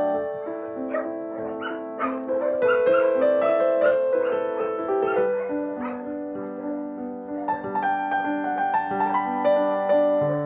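Soft piano background music, with puppies giving short yaps and barks over it about a second in and again near the end.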